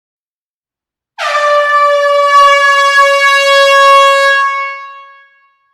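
Air horn sounding one long, steady blast that starts about a second in and lasts about three seconds, then dies away in a hall's reverberation.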